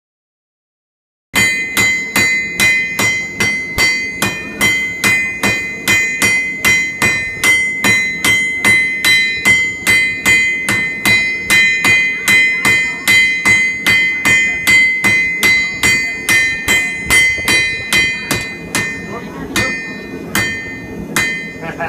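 Blacksmith's hammer forging steel on an anvil, striking in an even rhythm of about three blows a second, with the anvil ringing between blows. The blows grow softer and more spaced out near the end.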